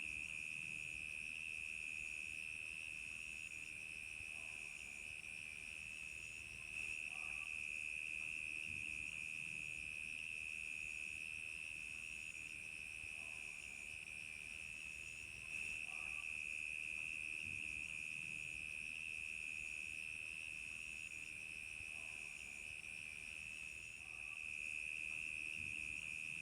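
Night chorus of crickets chirping: a continuous steady high trill, with higher-pitched pulsing chirps repeating about once a second over it.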